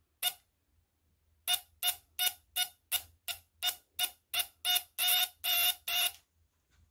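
Shop-built buzz coil ignition (a 12-volt 5-pin relay driving an automotive ignition coil) buzzing in short bursts each time the contact is closed. The buzzes come about three a second, and the last few near the end are longer.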